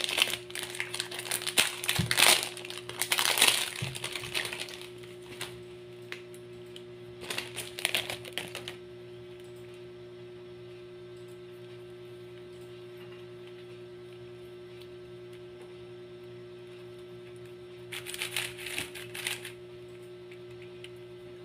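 Thin plastic wrapping crinkling as it is pulled off a YJ MGC 4x4 magnetic speedcube, then two short bursts of clicky clatter from the cube's layers being turned, with a long quiet stretch between them. A steady low hum runs underneath.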